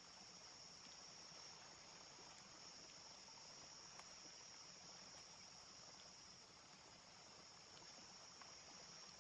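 Faint, steady high-pitched trill of crickets over a soft even hiss, with one small click about four seconds in.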